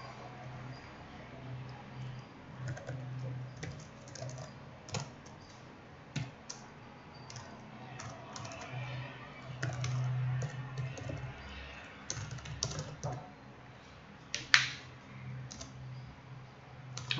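Typing on a computer keyboard: irregular runs of key clicks with short pauses, and one sharper, louder keystroke about three-quarters of the way through. A low hum comes and goes underneath.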